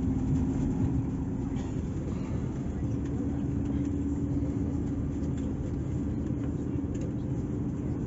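Airliner cabin noise heard from inside the cabin: a steady low rumble with a constant hum.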